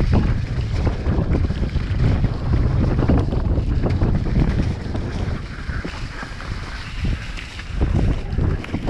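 Wind buffeting a helmet-mounted camera's microphone as a mountain bike descends a wet, muddy dirt trail at speed, with tyres running through mud and frequent knocks and rattles from the bike over bumps. The rush eases a little in the middle, then picks up again near the end.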